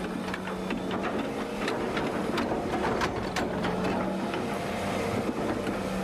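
Excavator's diesel engine running steadily while it digs, with irregular knocks and clatter from the bucket working the ground.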